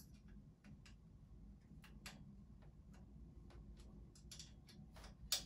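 Faint, irregular small metallic clicks of a hand tool turning small screws into the steel bracket of a standing-desk leg, with one louder click near the end.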